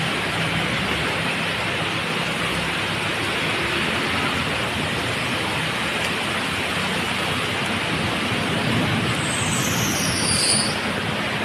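Heavy rain pouring down in a steady, loud hiss, with a low hum underneath. Near the end, two short high-pitched falling squeaks sound over the rain.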